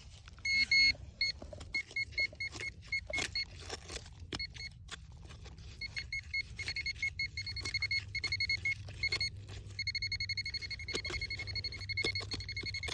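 Metal-detecting pinpointer beeping in quick repeated bursts, then sounding one continuous tone from about ten seconds in as it sits right on the buried metal. Scattered sharp knocks and scrapes of digging in soil come through the beeps.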